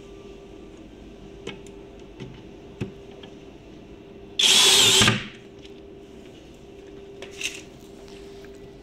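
Power drill driving a screw to fix a metal drawer slide rail: one short run of under a second midway, among a few light clicks and knocks of handling.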